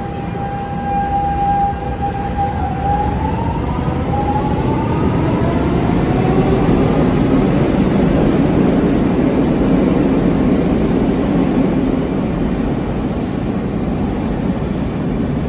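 Lisbon Metro train pulling out of an underground station: its electric traction motors whine on one steady note, then the whine rises in pitch as the train accelerates, under a growing rumble of wheels on rails that is loudest as the cars pass and eases slightly near the end.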